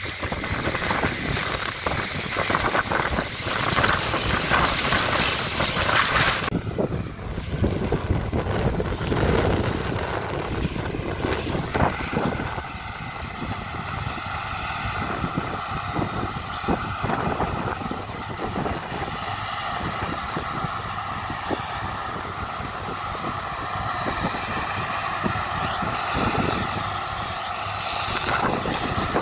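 Farm tractor engine running, with wind buffeting the microphone for the first several seconds. After an abrupt change the wind noise stops and the engine is heard as a steady hum.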